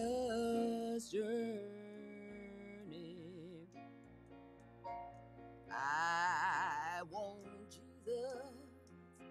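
A woman singing a slow gospel song with vibrato over sustained electric piano chords. Her loudest moment is a long held note with wide vibrato about six seconds in.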